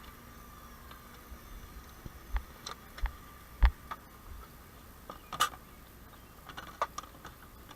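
About half a dozen scattered short, sharp clicks and knocks over a faint steady hum, the loudest a little past three and a half seconds in.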